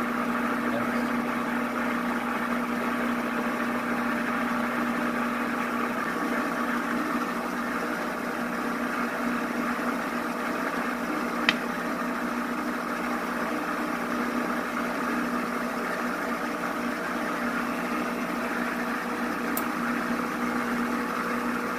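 Metal lathe running under power with its chuck spinning, a steady gear and motor hum, while a single-point tool chases the existing thread on a half-inch rod. There is one sharp click about halfway through.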